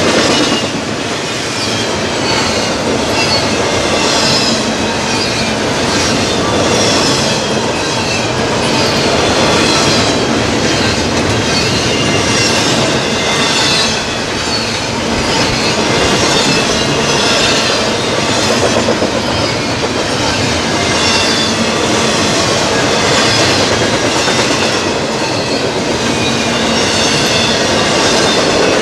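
Double-stack intermodal freight train's container well cars rolling past close by: a steady loud rumble and clatter of steel wheels on the rails, with thin high-pitched wheel squeal wavering throughout.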